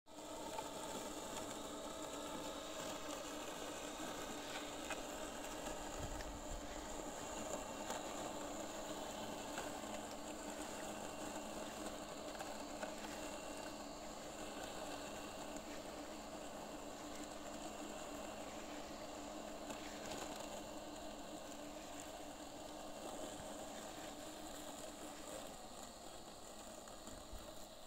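AL-KO Robolinho 822W robotic lawn mower running as it mows, its electric blade and drive motors giving a steady whir with several held tones, a little fainter near the end.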